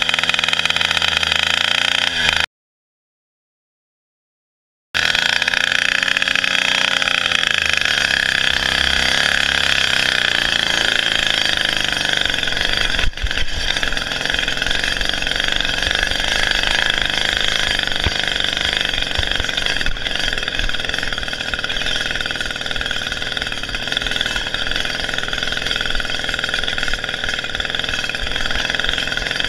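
Small petrol engine of a motorized bicycle running under way, its revs rising and falling as the throttle is worked back and forth to keep the sticking carburettor from hanging open. The sound cuts out completely for about two seconds near the start, and there is a single sharp knock about halfway through.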